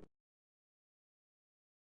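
Silence: the preceding sound stops abruptly right at the start, and nothing follows.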